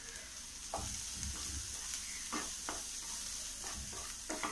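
Wooden spatula stirring and scraping diced vegetables in a nonstick frying pan, in short irregular strokes over a faint steady sizzle as they sauté with spice powder.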